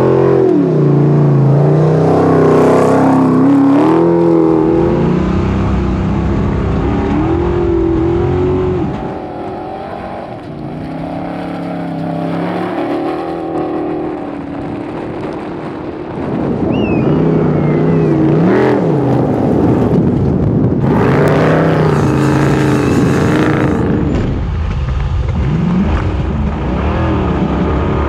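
Beast347 rally buggy's V8 engine revving up and down as it races through the gears, dropping back for several seconds midway before pulling hard again. A few seconds of loud rushing noise rise over the engine later on.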